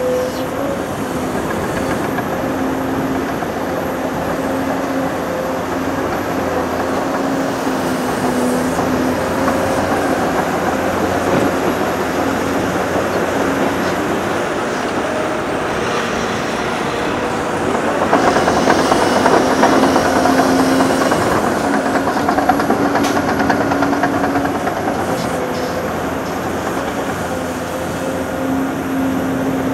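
Heavy diesel machinery on an earthworks site: a Caterpillar 390D hydraulic excavator and a crawler dozer running with a steady hum. About 18 seconds in a louder rush of noise lasts about three seconds as an excavator bucket load is dumped into a Caterpillar 773D dump truck.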